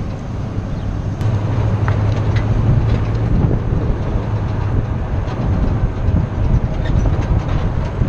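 Road noise of a jet ski trailer being towed behind a pickup truck on pavement: a steady low rumble from the tyres and trailer with light, scattered rattling.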